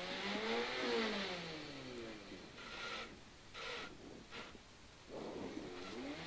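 Rally car engine revved up and back down while the car sits at a standstill, then a few short clicks or clunks, and the revs climb again near the end.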